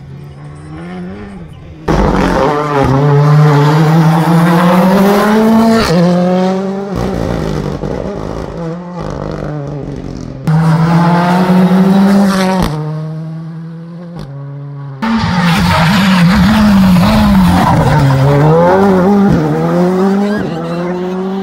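Rally cars under hard acceleration, engines revving high, the pitch climbing and then dropping at gear changes. There are several separate passes, each starting abruptly and loud.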